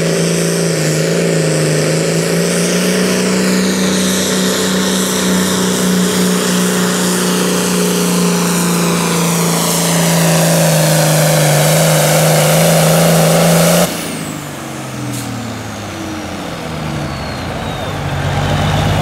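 John Deere Super Farm class pulling tractor's turbocharged diesel engine running flat out under load for about 14 seconds, then the throttle is cut suddenly. The engine drops to a lower, unsteady run while a high turbocharger whine winds down.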